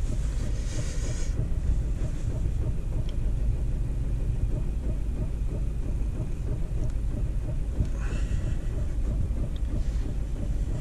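Ford Fiesta 1.4 TDCi four-cylinder turbo-diesel idling very lumpy, heard from inside the cabin: its cylinder-one injector is unplugged and the cylinder-two injector is faulty and contributing little, so it runs rough on too few cylinders.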